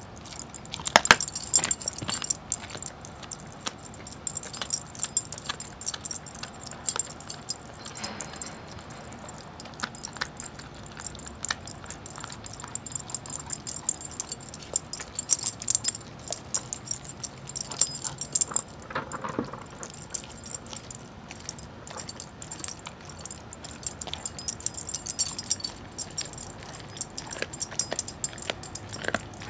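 Greyhound gnawing and licking a raw turkey leg, with irregular chewing clicks and crunches, while the metal tags on its collar jingle in bursts.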